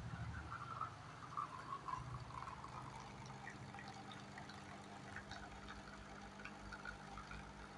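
Jura automatic espresso machine brewing: a steady low hum while espresso trickles from its twin spout into a cup.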